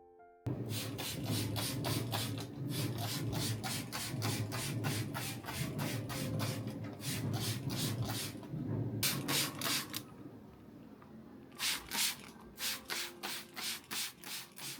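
Vegetables being grated by hand on a grater: rhythmic rasping strokes about four a second, a short pause near ten seconds, then a few slower strokes near the end.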